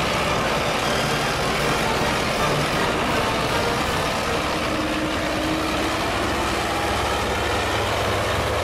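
Wheeled tractor's diesel engine running steadily at low revs.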